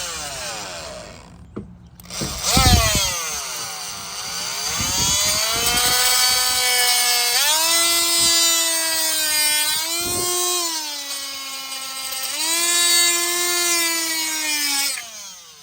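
Oscillating multi-tool cutting through the plastic core of a wire spool. Its motor whine dips in pitch as the blade loads up, shifts up and down in steps, and winds down near the end.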